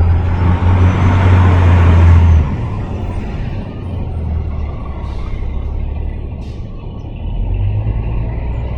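Wind buffeting the microphone: a loud, deep rumble with a hiss that drops off suddenly after about two and a half seconds, leaving a lighter rumble that swells again near the end.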